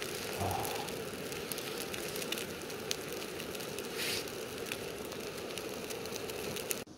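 Scottish square sausage sizzling as it fries: a steady hiss with scattered fine crackles that cuts off abruptly near the end.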